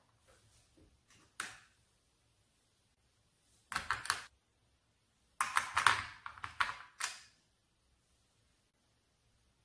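Plastic clicks and rattling as brushes, applicators and an eye pencil are pulled from and pushed back into the slots of a plastic makeup travel case: one click, then a short cluster of clicks about four seconds in, and a longer, louder cluster from about five and a half to seven seconds.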